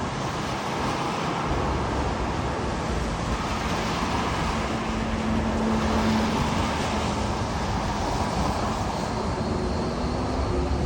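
Boeing 777 jet engines running, a steady broad rumble and rush with a faint hum in it, during the takeoff run.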